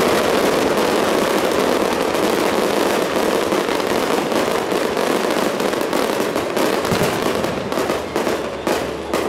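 Aerial fireworks bursting: a dense, continuous crackle of many shells going off at once, which thins to more separate bangs near the end.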